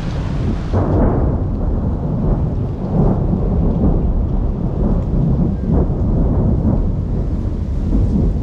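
Thunderstorm with a downpour beginning: a loud, continuous, deep rumble that swells and eases over rain noise.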